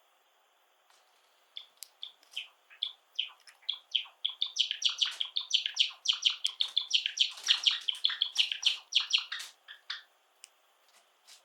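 Pet Java sparrow singing: a run of short, rapid notes that starts about a second and a half in, grows dense and loud through the middle, and thins out near the end.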